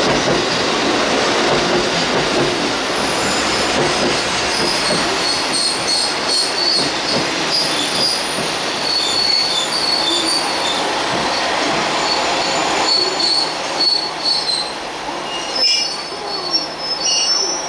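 KiHa 125 and KiHa 47 diesel railcars pulling away on curving track: wheels squealing in broken high tones over steady running noise. The noise grows uneven in the last few seconds.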